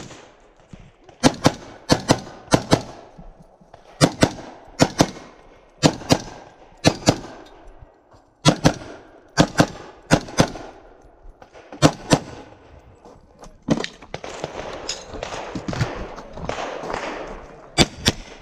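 AR-15 rifle fired rapidly at close range, shots in quick pairs and triples with short pauses between groups. Late on comes a few seconds of noise without shots, then a pistol fires two quick shots near the end.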